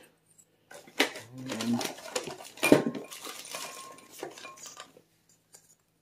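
Small wooden craft-stick pallets clattering and knocking together as they are handled and gathered up, in irregular knocks and rattles with one sharp knock about three seconds in, dying away near the end.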